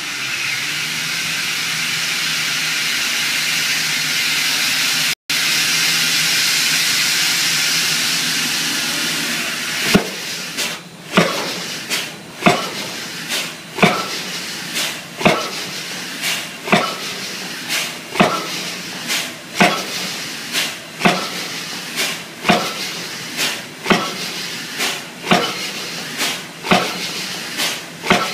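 Hydraulic pile-driving hammer driving a timber pile. A steady hiss runs for about the first ten seconds, then sharp, evenly spaced blows follow, a little more than one a second, each with a short ring.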